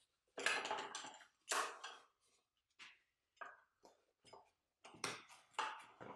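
Metal clattering and clinking in a string of short bursts as an aluminium right-angle square and a small clamp are handled and fitted against a workpiece corner. The clatter is loudest in the first two seconds and again near the end.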